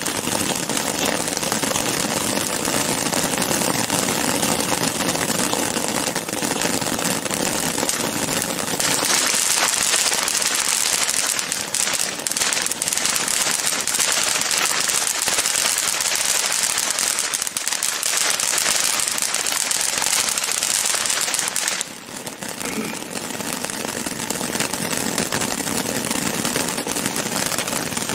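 Ground firework fountains spraying sparks with a steady rushing hiss. About nine seconds in the sound turns higher and brighter, with crackling, as the fountains change. It dips briefly about 22 seconds in before carrying on.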